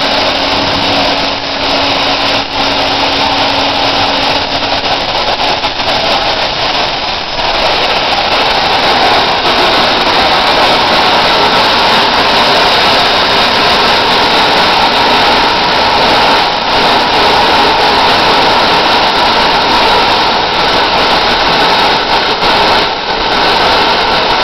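Home-built turbocharger gas-turbine jet engine running on the spot: a loud, steady rush of air with a whine in it. It grows somewhat louder about seven or eight seconds in and then holds steady.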